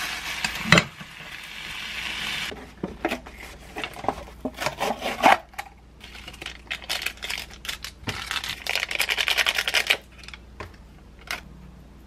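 Sausages and vegetables sizzling as they are stir-fried in a pan, with a sharp knock of the spatula about a second in. Then a run of small clicks and knocks, and a couple of seconds of crinkling rustle near the end as seasoning packets are opened over a cup noodle.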